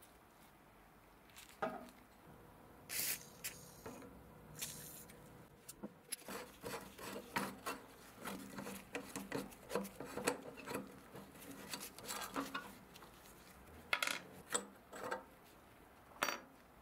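Metal parts of an old camping stove being handled and worked by hand: irregular clicks, taps and scrapes of brass fittings and the brass burner pipe against the rusty steel frame. The sounds are sparse at first, come thick and fast through the middle, and end with a few sharper knocks.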